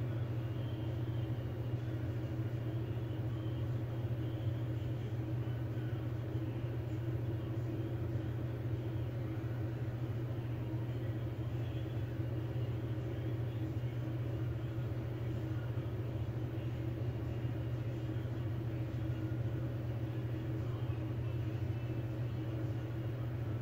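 A steady low hum that holds level and pitch throughout, with no separate knocks or changes.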